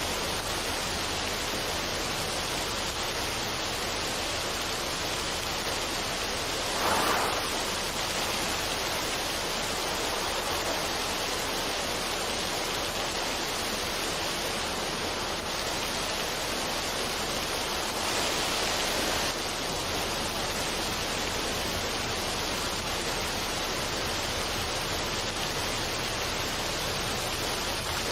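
Waterfall, a mountain stream spilling over rocks, rushing steadily as an even hiss of water. There is a brief louder surge about seven seconds in.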